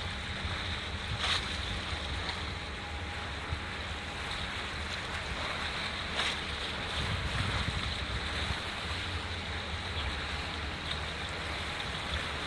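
Steady wind buffeting the microphone and water washing at the breakwater, with a low rumble underneath as a large container ship passes close by. Two brief ticks stand out, about a second in and about six seconds in.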